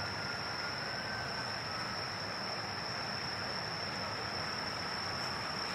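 Insects chirring in one steady high-pitched tone over a steady low rumble.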